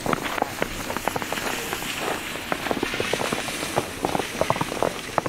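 Footsteps crunching through fresh snow, heard as a dense, irregular run of short crunches.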